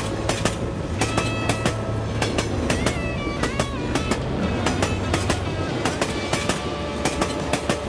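Passenger train running, heard from a coach window: a steady low rumble with a fast, uneven run of wheel clicks over the rail joints.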